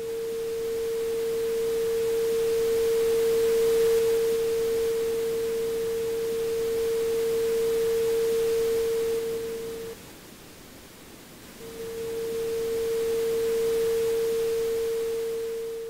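Synthesized sound of an interactive light-wall installation: a steady, pure mid-pitched sine tone over a hiss of pink noise. Both swell and fade in volume as the player's blob approaches or moves away from the wall's curve. The tone cuts out about ten seconds in and returns under two seconds later.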